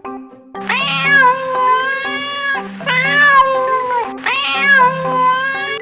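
Three long, drawn-out cat meows, each rising at the start and then held, over background music. The animal sound is AI-generated.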